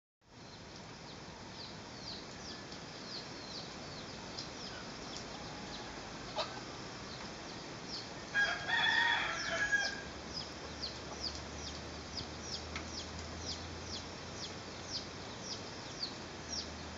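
A rooster crows once, about eight seconds in, over a steady run of short high chirps repeating about three times a second.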